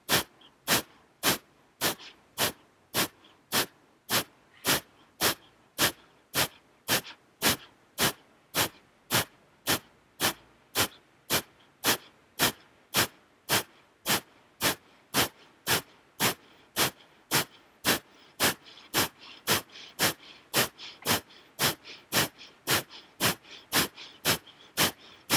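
Kapalabhati (skull-shining breath): a long, evenly paced train of short, forceful exhales pushed out through the nose, about two a second. Soft passive inhales become faintly audible between the puffs in the second half.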